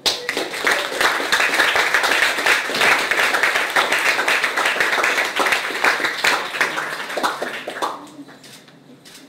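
Audience applauding, starting suddenly and dying away about eight seconds in.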